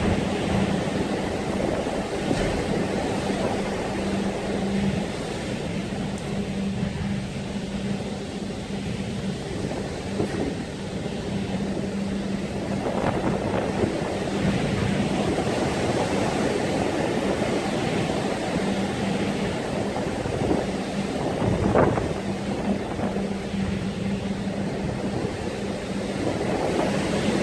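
Wind and rough sea rushing past a large container ship under way, over a steady low hum from the ship. The noise rises and falls in gusts, the strongest about three quarters of the way through.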